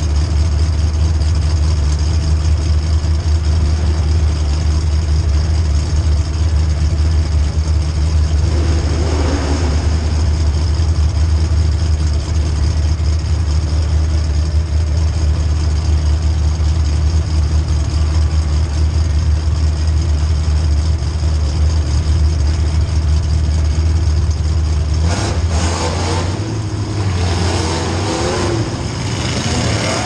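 Demolition derby car's engine idling through open upright exhaust pipes, heard from inside the cab. About 25 seconds in, the sound changes as the engine is revved and the car pulls away.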